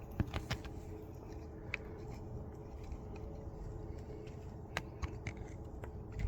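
Faint camera-handling noise: a few light clicks and knocks over a low steady rumble with a faint hum.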